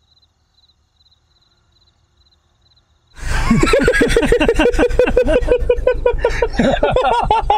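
About three seconds of near silence with faint, regular high ticking, then two men laughing loudly and heartily.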